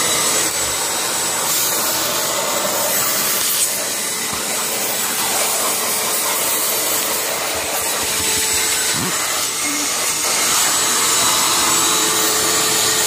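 Small 1-gallon, 1-horsepower shop vac with a bypass motor running steadily and loudly. Air rushes through the crevice tool as it is swept over a counter.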